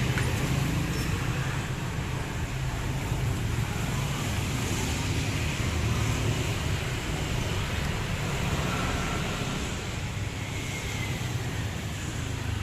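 Yamaha RX-King's 135cc two-stroke single-cylinder engine running steadily, with road noise around it.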